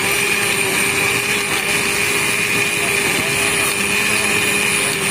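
Countertop electric blender running at a steady speed, its motor whirring as it blends a full jar of wood apple (bel) juice.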